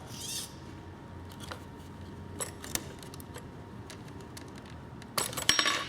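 Small plastic and metal clicks of RC truck parts being handled as the shifter servo is worked loose, with a quick burst of clicking and rattling near the end.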